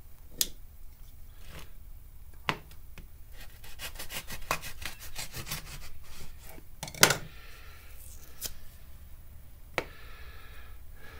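Cardboard grease tube being slit and torn open by hand: a run of quick rasping clicks as the paper wrap rips, with a few sharp knocks on the wooden bench, the loudest about seven seconds in.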